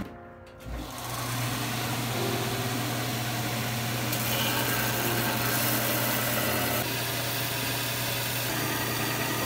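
Bench belt sander's motor starting up about a second in and running steadily with a low hum and belt hiss, as a forged steel knife blade is ground against the belt, throwing sparks.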